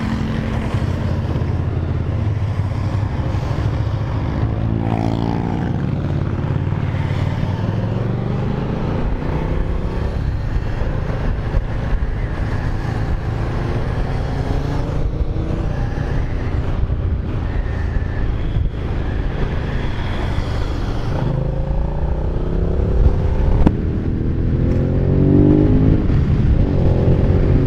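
Motorcycle V-twin engine, the Aprilia Caponord 1200 Rally's, pulling away and accelerating through the gears, with rising engine notes about five seconds in and again after about twenty seconds, heard through the helmet microphone over steady riding wind and road noise.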